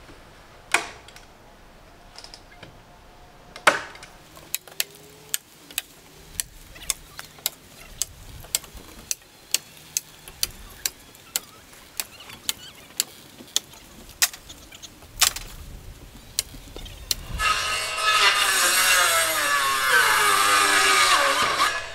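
Roofing work on a timber roof: a string of sharp, evenly spaced strikes, about three every two seconds, as the roofing membrane and battens are fixed down. Near the end a power tool runs under load for about four seconds, its pitch sagging as it bites.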